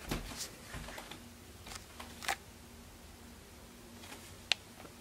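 Handling noise from a handheld camera being moved around: a few soft clicks and taps, the sharpest about four and a half seconds in, over a faint steady hum.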